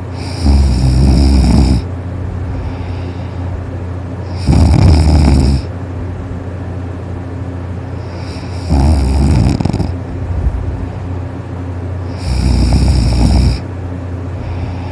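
A person snoring loudly, four long snores about four seconds apart. A steady low hum sits under the snores.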